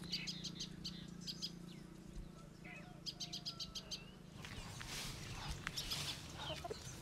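Background birdsong: a small bird calling in quick runs of short high chirps, several times, over a steady low hum. About four and a half seconds in, the hum stops and the sound turns to rustling and scuffing.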